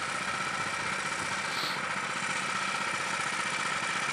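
Small off-road go-kart engine idling steadily.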